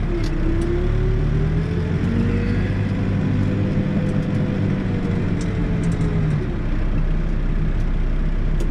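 New Holland backhoe loader's diesel engine running steadily while the backhoe works rock with its bucket mounted backwards; a whine rises slowly in pitch, then falls away again about six seconds in.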